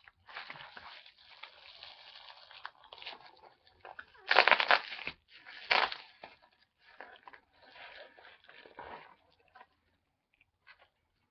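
A mailer package being torn open and its plastic wrapping crinkled by hand, in irregular rustles with the loudest tearing and crinkling about four to six seconds in.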